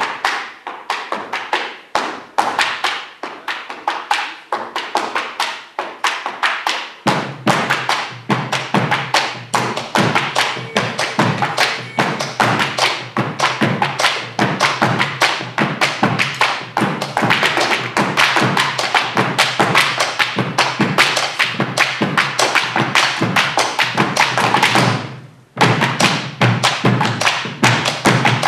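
Malambo zapateo: boot heels and soles striking a wooden stage in fast, rhythmic stamps. About a quarter of the way in, bombo legüero drums join with a steady low beat; the stamping breaks off briefly near the end, then picks up again.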